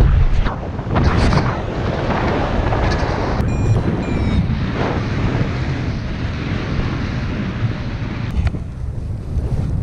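Airflow buffeting the microphone of a camera carried on a paraglider in flight: a loud, gusting wind rush, with a brief thin whistling tone about three and a half seconds in.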